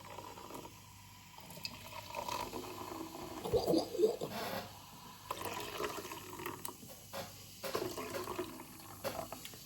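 Lychee lemonade being poured slowly from a can into a glass, an uneven trickle and splash of liquid.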